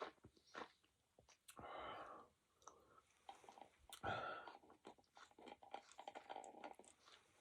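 A person chewing food close to the microphone: a run of small wet clicks and smacks, with two longer hissy stretches about two and four seconds in.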